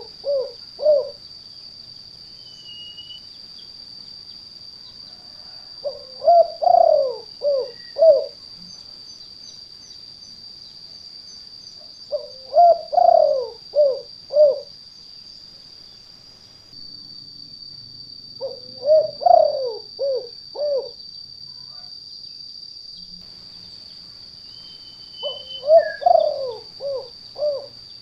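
Spotted dove (tekukur) cooing its 'kuk 2' call in repeated phrases about every six seconds, each phrase a quick cluster of coos lasting two to three seconds. A steady high-pitched whine runs underneath.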